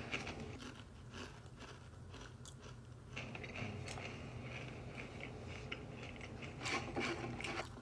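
Close-up chewing of wavy Pringles crisps: irregular crunching in the mouth, with a louder flurry of crunches near the end.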